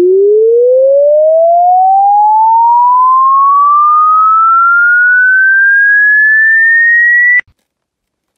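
A single electronic pure tone sweeping steadily upward in pitch, from very low to high, then cutting off suddenly near the end.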